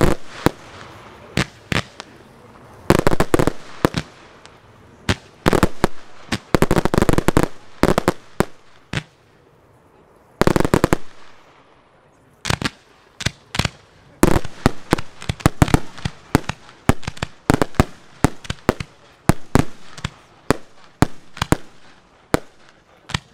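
Professional display fireworks going off: aerial shells and comets bursting in many sharp bangs, with three dense volleys of rapid reports about three, seven and eleven seconds in. The bangs come thicker and faster in the last ten seconds.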